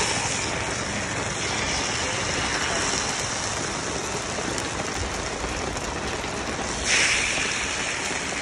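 Coconut batter sizzling as it is ladled into the wells of a hot dimpled coconut-cake pan, over a steady background hiss. A sudden louder sizzle comes about seven seconds in as a fresh spoonful goes in.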